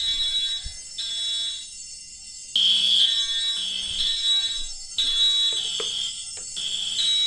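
A simulated electronic fire alarm sounding. It gives high-pitched beeps about once a second, then after a short gap comes back louder, switching back and forth between two high pitches.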